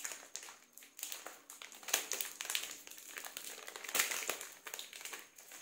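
Crinkly plastic snack-bar wrapper being handled and torn open by hand: a run of sharp crackles, with louder ones about once a second.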